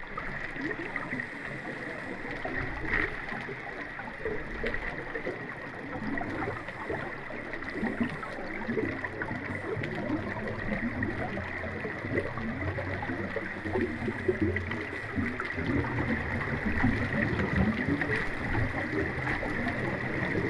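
Mountain creek water rushing and gurgling over rocks, a steady wash with a thin, steady high tone running underneath.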